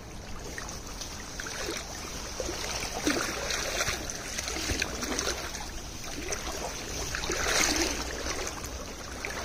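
River water flowing past the bank, a steady rushing sound.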